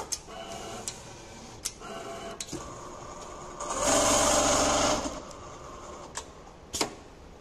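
Richpeace automatic template sewing machine running, its head stitching disposable slipper parts on the template table. Short humming spells and scattered sharp clicks come from the machine, with a louder stretch of fast running for about a second, about four seconds in.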